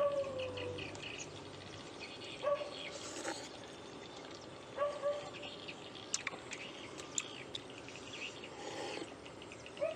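Birds chirping intermittently over quiet outdoor background noise, with a short lower call that comes back a few times.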